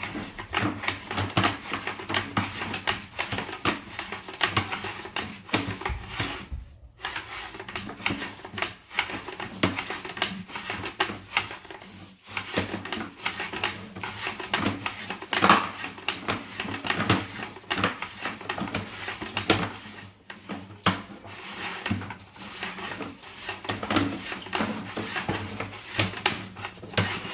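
Sewer inspection camera's push cable being fed down a plumbing stack: steady clattering, rubbing and knocking as the cable and camera head move through the pipe, with brief pauses twice.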